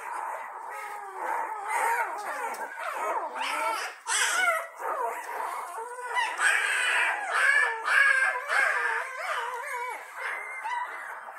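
A litter of puppies squealing and whining together in many overlapping, wavering high cries, loudest a little past the middle. The puppies are hungry and excited, expecting to nurse after their mother has been in with them.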